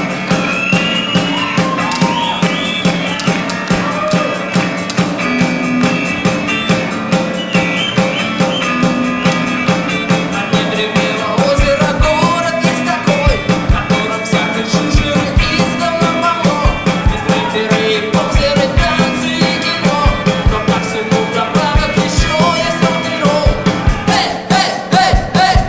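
Rock-and-roll music with a steady drumbeat.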